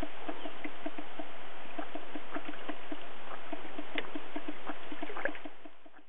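Steady rush of running river water, with a quick train of soft pulses, about four a second, and a few sharp ticks over it; it all fades out near the end.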